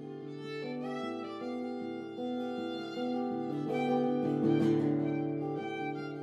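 Music of bowed strings with a violin to the fore, playing held notes that change every second or so and swell to their loudest about four and a half seconds in.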